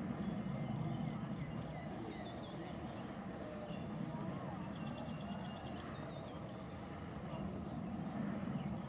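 Outdoor ambience: a steady low hum, with faint high chirps scattered through and a short rapid trill about five seconds in.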